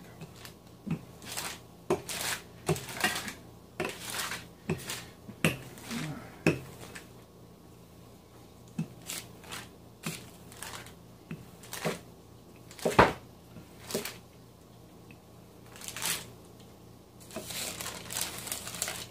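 A wooden rolling pin rolling out pie crust dough on a sheet of paper: the paper crinkles and rustles, with scattered light knocks and clicks, the sharpest about 13 seconds in.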